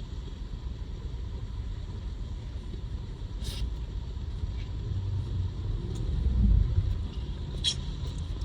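Low, steady rumble of a car's engine and tyres heard from inside the cabin while driving, swelling louder for a moment about two-thirds of the way through. Two short sharp ticks stand out, one a few seconds in and one near the end.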